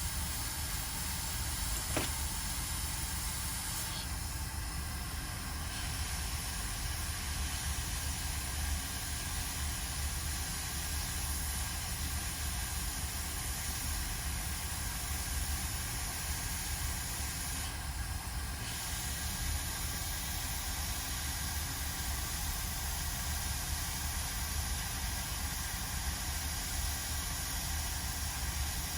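Hot air rework station blowing a steady hiss of air, with a low hum underneath and one brief click about two seconds in.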